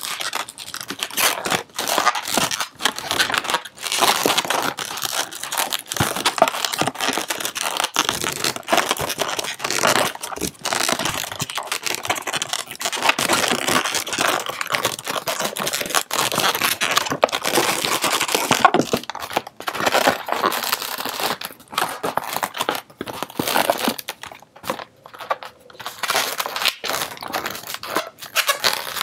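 Inflated latex 260 modelling balloons squeaking and rubbing against each other as they are twisted and a tail is wrapped round to lock the shape: a dense run of short squeaks and rubs that thins out over the last few seconds.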